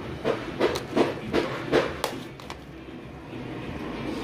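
A quick run of about six knocks, roughly three a second, in the first two seconds, then only a low background.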